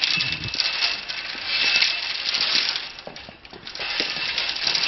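Dry bamboo slats of a hand-made bamboo mat rattling and clacking against each other as they are handled, a dense run of small clicks that swells and fades.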